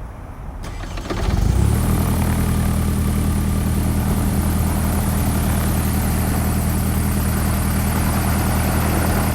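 Propeller aircraft's piston engine speeding up over the first couple of seconds, then running steadily at high power.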